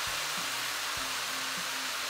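Background music with low bass notes, over a steady hiss.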